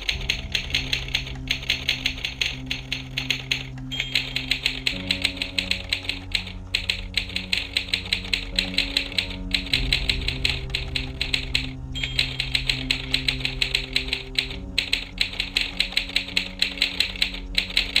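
Typewriter typing sound effect: rapid key clacks in runs of two to three seconds broken by short pauses, over spooky background music with held low notes.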